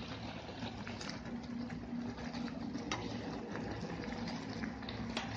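Thick tomato paste simmering in oil in an iron kadai, with a low bubbling and an occasional sharp pop as it spits.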